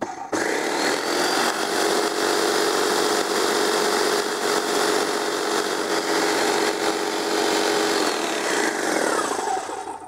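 Graco Magnum Project Plus airless paint sprayer's pump running with a steady hiss of spray as the gun is held open into a bucket, flushing the line until paint comes through. It starts abruptly and cuts off near the end.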